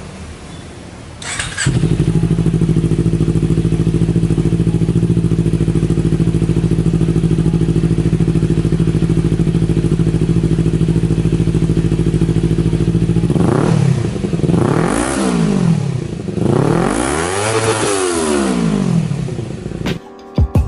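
2018 Kawasaki Ninja 250's parallel-twin engine, breathing through a Corse Project carbon slip-on muffler, starts about one and a half seconds in and idles steadily. Near the end it is revved three times, each rev rising and falling back, the last one longest.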